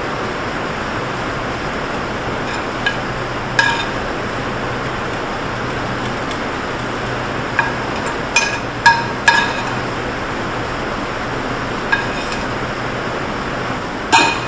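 Kitchenware clinking: metal utensils and dishes knocked together about eight times, each clink with a brief ring, three of them close together in the middle and the loudest near the end, over a steady rushing noise with a low hum.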